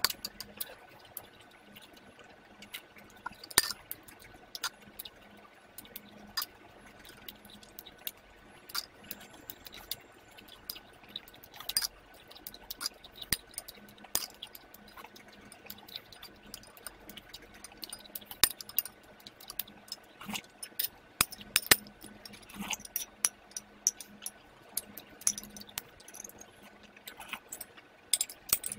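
Metal spoon clinking and scraping against a bowl at irregular intervals, with wet chewing and slurping of cornflakes soaked in drinking yogurt.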